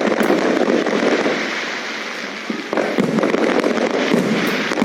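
Fireworks display: a dense, continuous barrage of crackling, popping bursts, with a fresh loud volley about two and a half seconds in.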